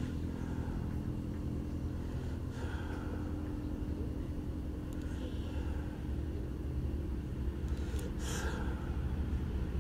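Steady low background rumble with a faint constant hum, and a few soft swishing sounds over it.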